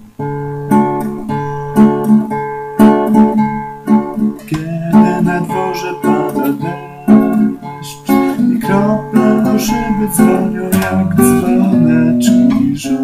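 Acoustic guitar strumming chords in a steady rhythm: the instrumental intro of a song, starting abruptly and playing on before the singing comes in.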